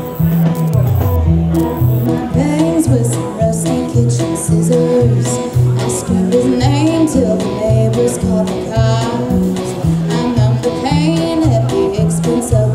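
Live band playing: electric guitars over a repeating bass line, with drums coming in about two seconds in and a woman singing lead.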